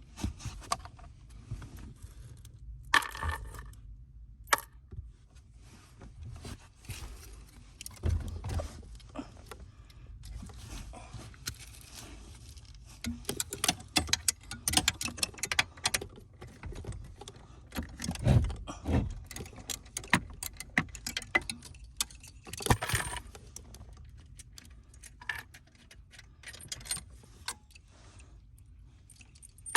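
Irregular small metallic clicks, clinks and rattles of hand tools and parts being handled, with a few louder knocks among them.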